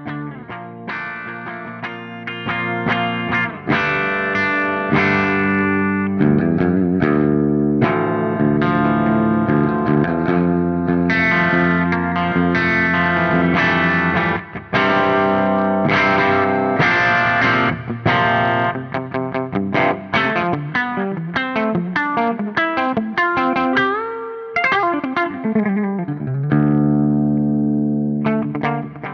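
Overdriven electric guitar played through a Soldano SLO-100 clone valve amplifier, reamped: sustained distorted notes and chords, with notes sliding down near the end.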